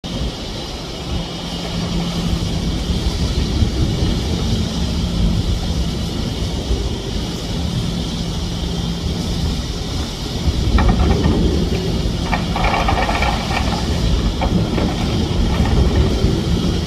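Excavator diesel engines running steadily with a low hum. About eleven seconds in they grow louder, and for a few seconds there is a clatter of rubble stone being handled in a bucket.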